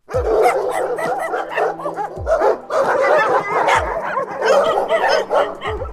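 A group of Indian native-breed dogs barking and yipping, many short barks overlapping from several dogs at once.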